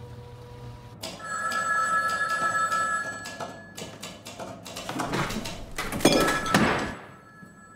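An electronic ringing tone of two steady pitches, held for about two seconds, then a run of knocks and rustling, loudest about six seconds in.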